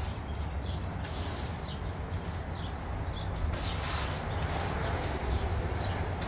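Stiff-bristle hand brush scrubbing loose sawdust back and forth over a wooden board, in repeated brushing strokes, packing it into a glued gap. A low steady hum runs underneath.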